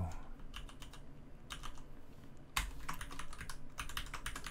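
Typing on a computer keyboard: scattered keystrokes in short runs, then a dense flurry of keys from about two and a half seconds in.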